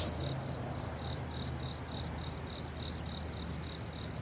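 An insect chirping in an even, high-pitched rhythm of about four chirps a second, over a steady low outdoor rumble.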